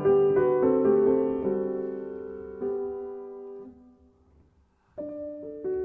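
Solo piano background music, slow notes dying away. The playing fades out about four seconds in, and new notes come in about a second later.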